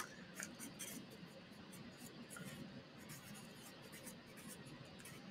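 Felt-tip marker writing on sketchbook paper: faint, quick scratchy strokes, several per second.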